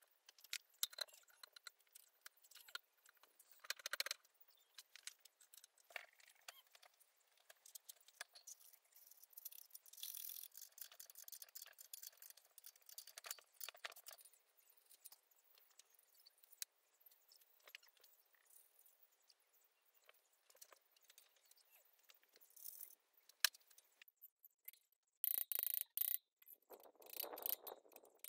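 Faint, scattered metallic clinks and rattles of bicycle parts, bolts and a wrench being handled during assembly, with a few louder knocks and rattles near the end.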